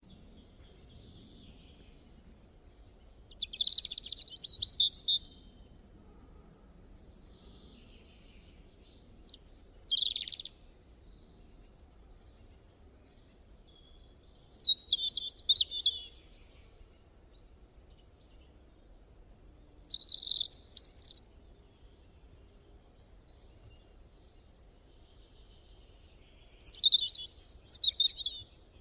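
A songbird singing short, quick phrases, each a second or two long, repeated about every five to six seconds.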